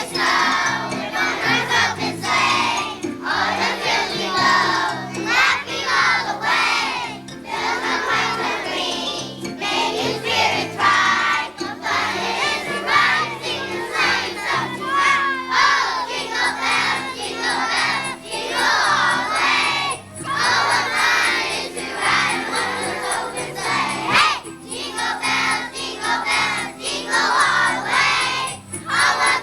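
A group of kindergarten children singing loudly together, many young voices at once, over an instrumental accompaniment.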